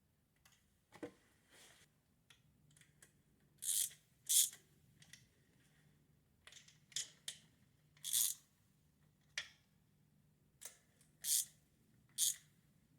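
Irregular short scrapes and clicks of hand tools and metal parts being handled while a carburettor stud kit is fitted, about ten in all, the loudest near the middle and near the end. A faint steady low hum runs underneath.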